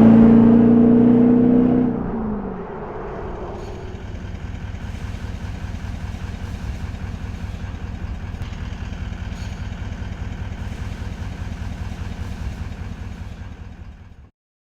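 Toyota LandCruiser 200 Series V8 turbo diesel through a Legendex 2-into-1 3.5-inch stainless exhaust: held at steady revs for about two seconds, then falling back to an even, rumbling idle that cuts off suddenly near the end.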